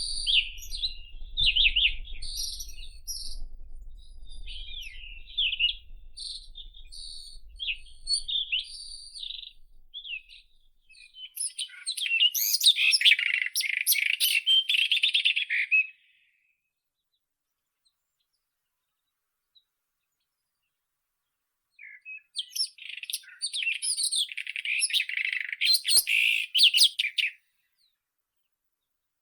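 White-throated robin singing. First come short, varied high phrases for about ten seconds, then two runs of rapid, dense notes lasting about four and five seconds, with a few seconds of silence between them. The song stops a couple of seconds before the end.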